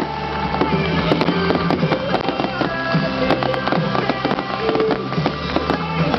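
Music playing, with fireworks banging and crackling over it again and again.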